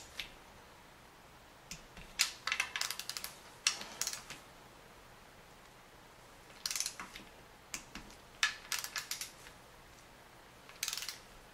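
Ratchet of a torque wrench clicking in several short bursts of rapid clicks, with pauses between, as the M6 timing-cover bolts are torqued to spec.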